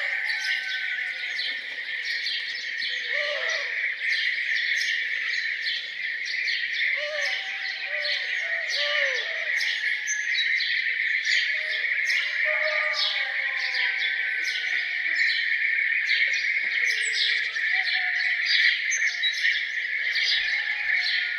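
Dense chorus of songbirds chirping and singing over a continuous high-pitched drone, with short runs of lower, arched calls about three seconds in and again around seven to nine seconds in.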